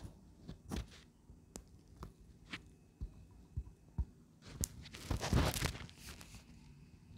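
Handling noise of a stainless steel bowl and plate: scattered light clicks and knocks, then a short rustling scrape about five seconds in as the plate is set down on an artificial grass mat.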